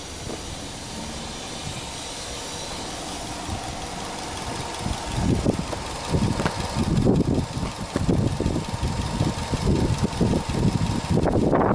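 Subaru Legacy 2.0GT's EJ20 turbocharged flat-four engine idling. From about five seconds in it is much louder and more uneven.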